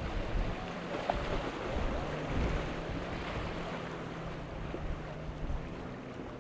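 Jet ski engine running steadily at low revs, over wind on the microphone and the wash of surf.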